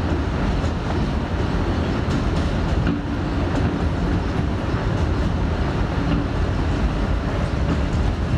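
Subway train running along the track, a steady loud noise of wheels on rails heard from inside the car.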